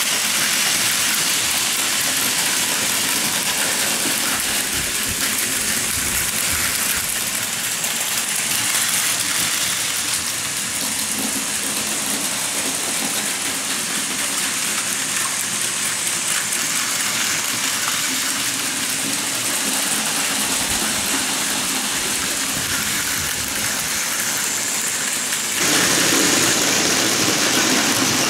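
Battery-powered Plarail Advance toy trains running on plastic track: a steady whirring rattle of small motors, gears and wheels. It turns suddenly louder and fuller for the last couple of seconds, as a train runs close by.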